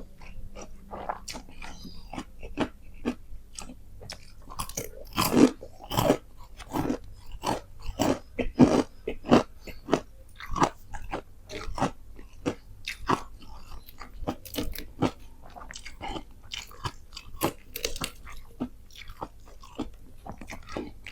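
Close-up chewing and crunching of crispy fried chicken, a quick irregular run of sharp crunches, loudest around the middle.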